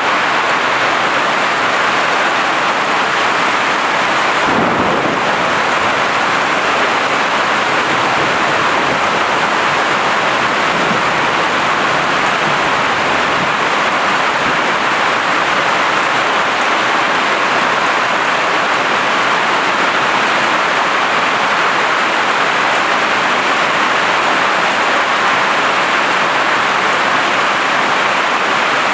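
Heavy hail drumming steadily on a tin roof, a dense, loud roar of countless impacts. A brief low rumble rises through it about five seconds in.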